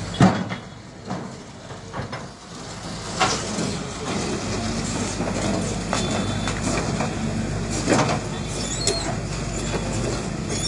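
SANY crawler excavator's diesel engine running while its steel tracks and bucket clank and knock as it moves over the rubble-strewn ground. A sharp knock comes right at the start, more follow every second or so, and the engine runs steadier from about four seconds in.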